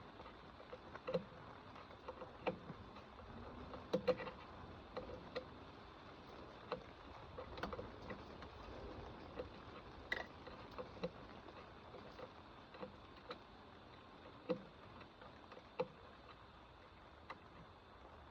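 Irregular light clicks and taps, about one or two a second, from a hand wrench working fasteners.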